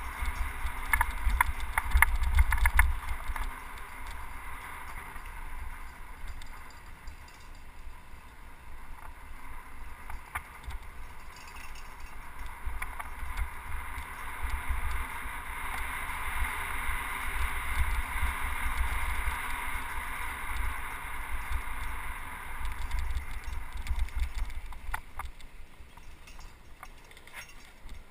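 Mountain bike rolling downhill, its tyres hissing steadily on the road surface, with gusty wind rumbling on the microphone. The bike clatters over bumps a couple of seconds in.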